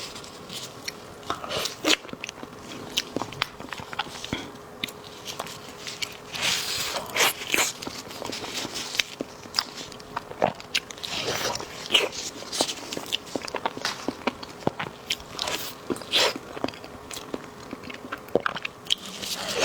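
Close-up eating sounds of a soft cheese-lava Basque cheesecake: bites, wet sticky chewing and lip smacks, with many irregular sharp mouth clicks.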